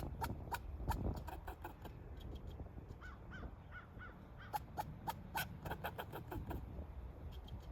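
Squirrel barking: rapid runs of short, sharp calls, several a second, coming in bursts with brief lulls. This is the scolding alarm call a squirrel gives at a perceived threat.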